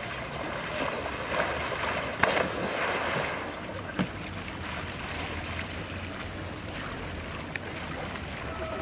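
Aquaskipper hydrofoil water bike skimming and bobbing across flat water: a steady rush of water and wind noise, with a few sharp splashes about two and four seconds in.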